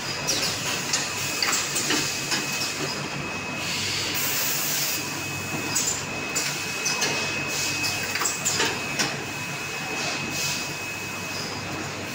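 Automatic water-bottle packaging line running: a steady low machine hum with a thin high whine, broken by irregular clacks and clatter from the conveyors and packing mechanisms.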